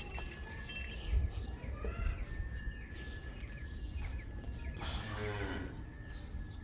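A cow or buffalo lowing once, briefly, about five seconds in, over a constant low rumble with faint bird chirps.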